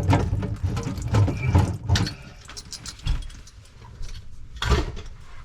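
Hand tools working on plumbing fittings: rapid metallic clicking and rattling, like a ratchet wrench, for about two seconds, then quieter handling noise and one sharp knock near the end.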